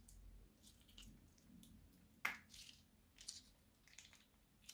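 Faint, wet squelches and small crackles of slime being squeezed out of a piping bag, with one sharper pop about two seconds in.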